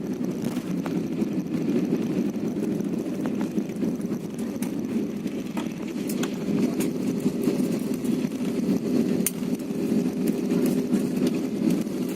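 Airliner cabin noise: a steady low rumble of the engines with a faint hum and a few small clicks.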